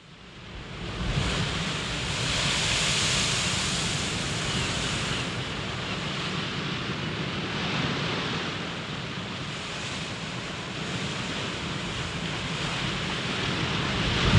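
Ocean surf: waves breaking and washing onto the shore in a steady rush of noise that fades in over the first second, then swells and eases in slow surges.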